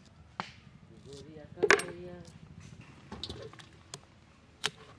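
Five sharp clinks and knocks of hard objects striking a metal cooking pot, the loudest about a second and a half in.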